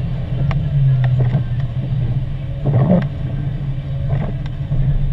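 Steady drone of a car's engine and tyres heard inside the moving car, with a few short knocks and swishes, the strongest just past the middle.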